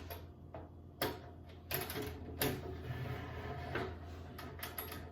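Handling noise of an electrical cable being worked into a metal junction box through its cable connector: scattered knocks and clicks with scraping of the cable jacket between them, over a steady low hum.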